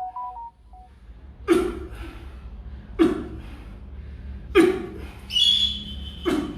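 Four soft thumps at an even pace, about one every second and a half, with a short steady high tone between the last two.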